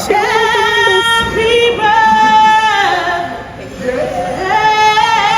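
A woman singing two long held notes, with a short break between them about three and a half seconds in.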